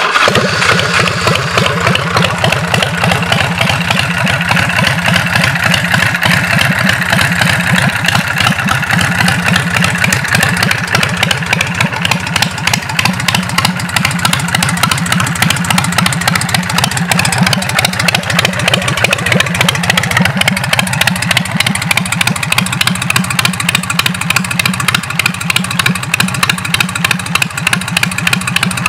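2008 Big Bear Choppers Sled ProStreet's V-twin engine idling steadily, with an even, fast beat of firing pulses.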